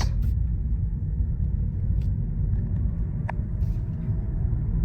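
Steady low road and tyre rumble inside a moving 2013 Lexus CT200h, with a few faint clicks and a short faint tick about three seconds in.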